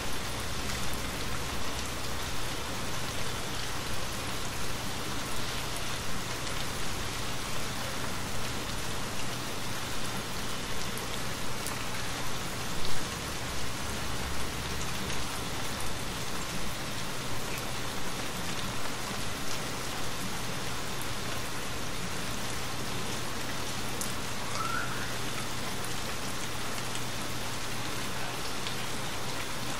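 Steady rain falling, with one brief louder thump about thirteen seconds in.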